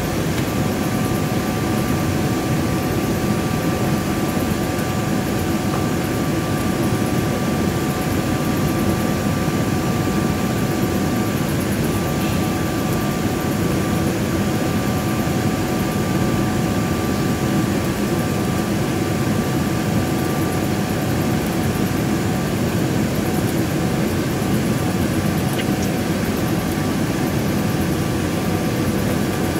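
Steady cabin noise inside a Boeing 777-300ER on final approach: the GE90-115B engines' drone and rushing air, with two steady high tones over it.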